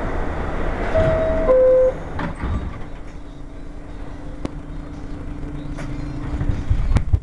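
New York City subway car's two-note door chime, a higher note then a lower one about a second in, followed by a few knocks as the doors close. A steady hum follows as the train gets under way.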